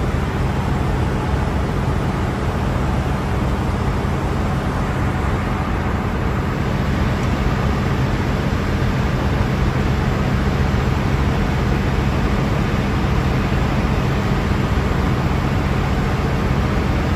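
Steady drone of running ship's machinery: a constant low hum under an even hiss, unchanging throughout.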